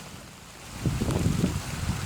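Wind gusts buffeting the microphone in a rainstorm, starting about a second in, over a faint hiss of rain.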